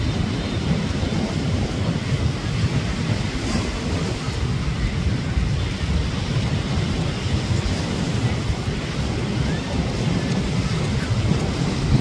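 Surf breaking on a sandy beach, a steady wash with wind buffeting the microphone as a continuous low rumble.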